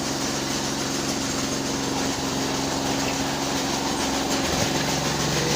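Engine-driven chaff cutter running steadily, a constant motor hum whose pitch shifts about four and a half seconds in.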